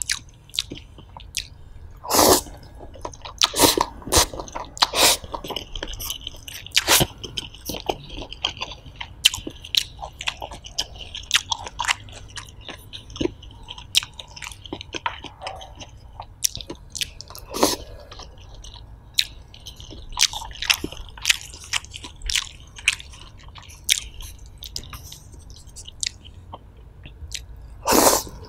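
Close-miked chewing of stir-fried egg noodles, with steady wet mouth clicks and smacks and several louder slurps of noodles, one near the end.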